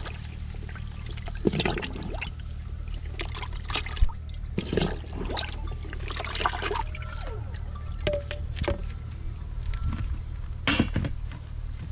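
Cooked rice-and-chicken dog food being poured, with short clatters and knocks of bowls, over a steady low hum.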